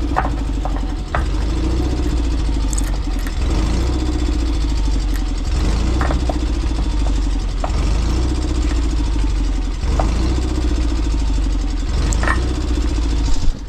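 An engine running steadily at idle, with scattered light metallic clicks and taps from work on the machine.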